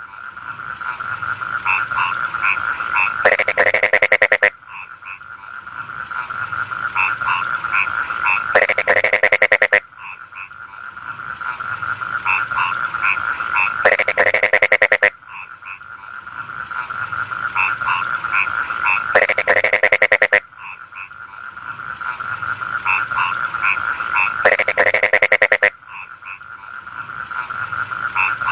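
Rice-field frogs croaking in a chorus: a steady trill with rows of short notes that builds in loudness, broken about every five seconds by a loud burst of rapid croaks.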